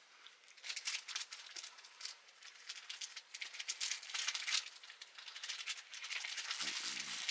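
Dry rattling and rustling in quick irregular clusters, denser and steadier near the end.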